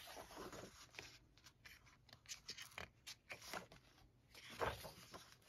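Faint rustling and brushing of paper as the pages of a paperback colouring book are turned and smoothed flat by hand, with a slightly louder rustle near the end.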